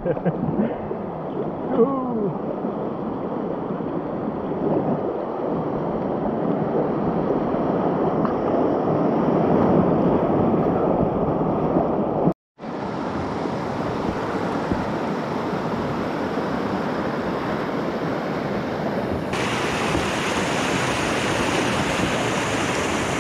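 Whitewater of a river rapid in high spring flood, rushing and splashing around the kayak running it, with wind on the microphone. The sound drops out for a moment about halfway through.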